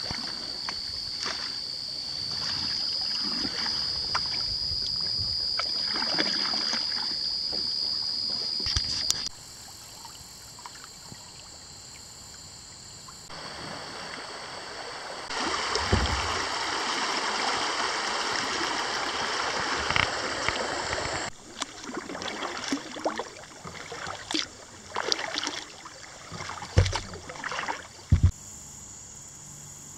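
Kayak paddles dipping and splashing in a river, with the even rush of the current for several seconds about halfway through. A steady high insect buzz runs under the first third. The sound changes abruptly several times.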